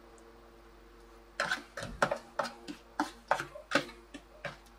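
Close-up eating sounds of a man chewing a mouthful of instant noodles: a run of about a dozen short mouth smacks and clicks, roughly three a second, starting about a second and a half in.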